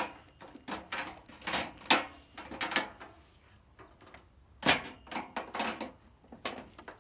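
Hinged lid of a Coleman camp grill-stove being opened and shut, with latch clicks and a series of short knocks; the loudest knock comes about two-thirds of the way in as the lid comes down shut.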